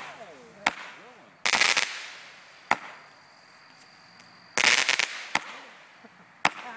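Aerial fireworks bursting: single sharp bangs, with two loud bursts of rapid crackling about a second and a half in and again near five seconds.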